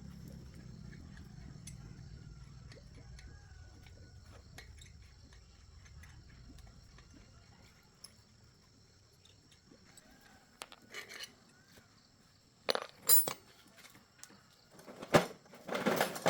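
Small metal parts and tools clinking and rattling as they are handled, with a few sharp clinks partway through and a longer rattle near the end. A low hum fades away over the first several seconds.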